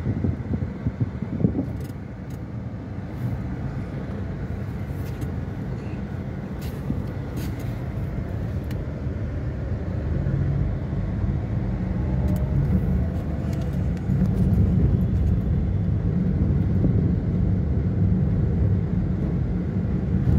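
Car driving on the road, heard from inside the cabin: a steady low engine and road rumble that grows louder about two-thirds of the way through.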